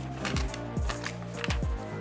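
Background electronic music with a beat: deep kick-drum hits several times a second over held bass notes, with light hi-hat-like strokes on top.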